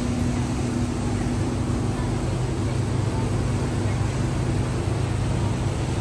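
Uber Boat river bus on the Thames running, a steady low engine drone with an even rushing noise over it.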